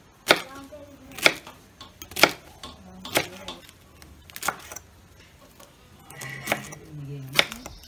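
Large kitchen knife chopping cabbage on a wooden cutting board: a sharp knock of the blade hitting the board about once a second.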